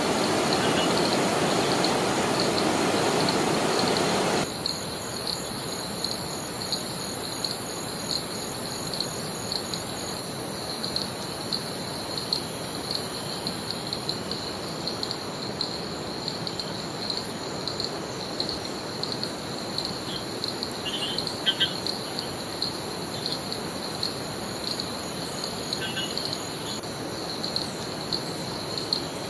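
A waterfall rushes for the first four seconds or so, then cuts off. After that a steady, pulsing chorus of rainforest insects shrills on, with a few short bird chirps.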